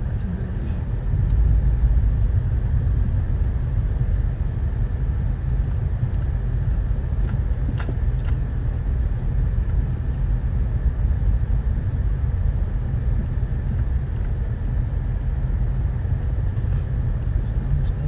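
Steady low rumble of a car driving slowly on a snow- and ice-covered road, heard from inside the cabin, with a few faint clicks about halfway through.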